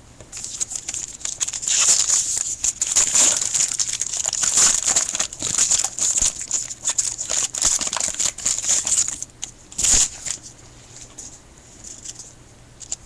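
A trading card pack's wrapper crinkling and tearing as it is opened: a dense, papery crackle for about nine seconds, then a sharp snap about ten seconds in, followed by quieter handling.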